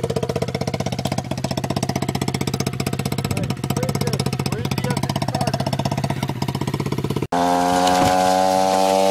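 Small 110 cc single-cylinder pitbike engine idling with a rapid, even putter. About seven seconds in, at a cut, it is replaced by a louder, higher-pitched steady engine note of the bike running at higher revs.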